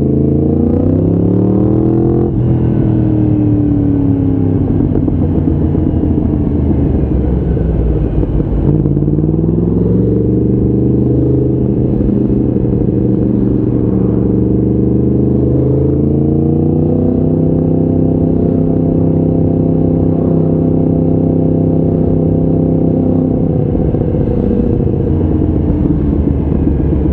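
Motorcycle engine under way, climbing in pitch and dropping at a gear change about two seconds in. It falls off around eight seconds, climbs again into a steady cruise, rises once more around sixteen seconds, holds, and eases off near the end.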